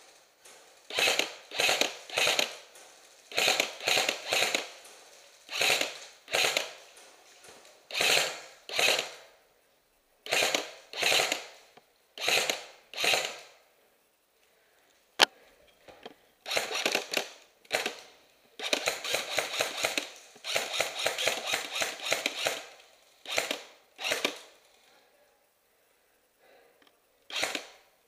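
G&P M4A1 airsoft electric rifle firing short full-auto bursts, mostly two at a time about a second apart, with a longer stretch of rapid fire about two-thirds of the way through.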